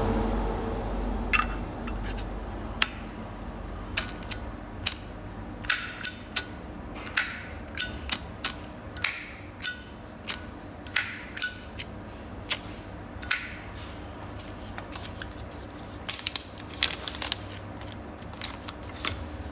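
Satin-plated brass Zippo lighter being handled: a string of sharp metallic clicks and clinks with a bright ring, irregularly spaced and a few a second at their busiest, thinning out near the end.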